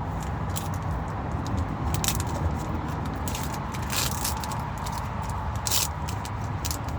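Short crackly rustles of a foil booster-pack wrapper and trading cards being handled, a few seconds apart, over a steady low hum.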